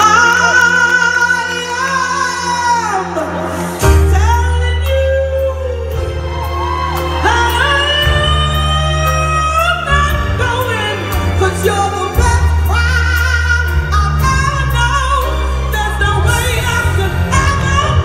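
A woman singing an R&B song live into a microphone with her band, heard from the audience in a large hall. She holds long notes with vibrato, and heavy bass and drums come in about four seconds in.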